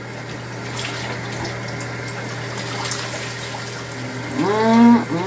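Shower running steadily: a hiss of falling water over a low steady hum, with a few faint clicks. Near the end comes a short wordless voiced sound, the loudest part.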